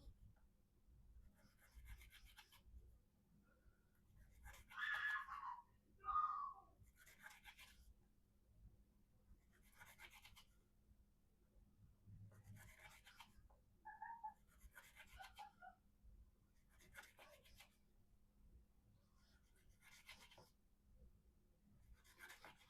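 Spyderco Endura VG-10 knife blade slicing through paper, about nine faint strokes some two and a half seconds apart. The edge is near its failure point but still getting through.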